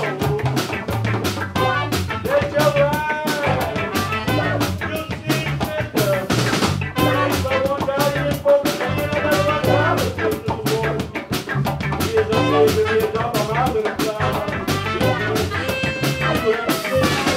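A live ska band playing, with trumpet, electric guitar and a drum kit keeping a steady beat.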